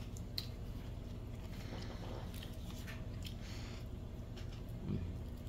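Quiet eating sounds: a few faint clicks of a metal fork against plates and fried fish, with chewing, over a steady low hum. A short low murmur comes near the end.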